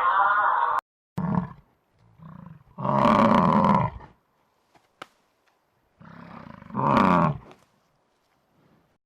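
A big cat roaring in separate deep roars: a short one just after a second in, a long one about three seconds in, and another about seven seconds in that swells up from a low grunt. A different higher-pitched animal call cuts off abruptly a little under a second in.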